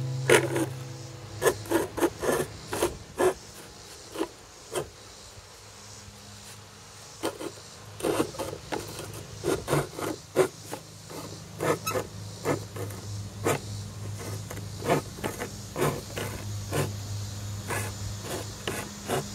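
Coping saw cutting around the outline of a quartersawn cedar guitar top, a run of short rasping strokes, with a pause of about two seconds before the strokes resume in quicker runs.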